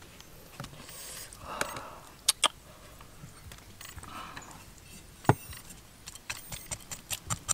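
Knocks on a wooden chopping board: a few scattered ones, a loud single knock about five seconds in, then a run of light knocks, two or three a second, as a cleaver starts cutting a slab of raw pork belly.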